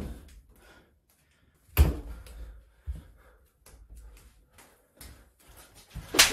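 A few scattered thuds and knocks from a staged scuffle in a small room. There is a sharp thud about two seconds in, a light knock a second later, and a run of louder hits starting near the end.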